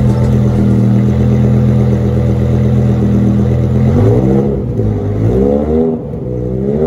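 BMW M6 E63's V10 engine, heard through an aftermarket Kreissieg F1 exhaust, holds a steady note. About four seconds in it is revved up and down about three times, the pitch rising and falling each time.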